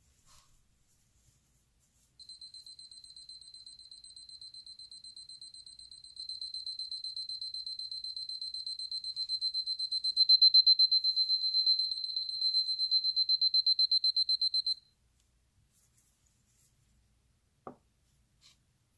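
Seiko Quartz Alarm wristwatch's alarm sounding: a high, rapidly pulsing beep that lasts about twelve seconds, getting louder in steps, then stops abruptly. The alarm works with the watch's new coil block fitted.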